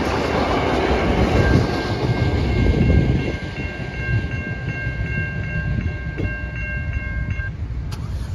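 The tail of a heritage train, red wooden carriages with a T-class diesel locomotive on the rear, rumbling and clattering over a level crossing, fading out about three seconds in. A steady electronic level-crossing bell rings until it cuts off near the end, followed by a single click.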